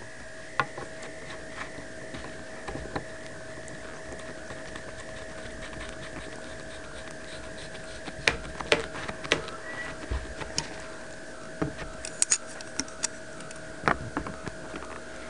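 Hand-handled PVC pipe fittings of a homemade air cannon, with scattered plastic clicks and knocks mostly in the second half as the barrel is fitted onto the threaded chamber end. A steady hum runs underneath.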